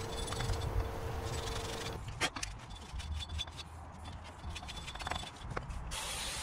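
Hand wire brush scraping rust off the wheel hub's mating surface in short, irregular strokes, with scattered light metallic knocks.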